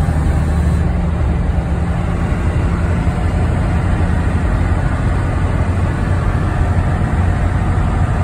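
1992 Dodge W250's 5.9-litre 12-valve Cummins inline-six turbo diesel running at steady highway cruise, heard from inside the cab as a continuous low drone.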